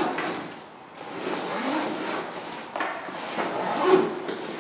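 Handling noise of a nylon backpack as its detachable front pocket is unfastened and pulled off: fabric rustling and scraping, with a sharper click-like sound near the end.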